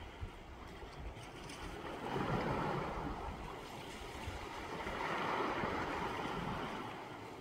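Sea waves washing onto the shore, the surf swelling twice, about three seconds apart.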